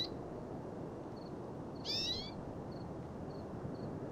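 A bird calling: a short, high-pitched call that falls in pitch, heard twice about two seconds apart over a steady background hiss.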